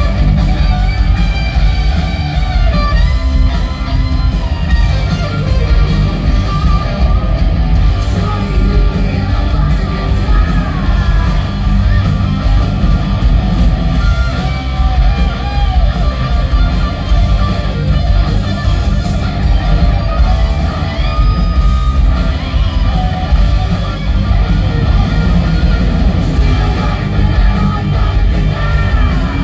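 Live glam-metal band playing a song at full volume: distorted electric guitars, bass and drums, with singing over the top, heard from the crowd.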